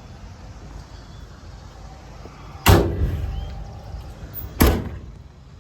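Two door slams on the truck, about two seconds apart, each a sharp bang with a short ring-out.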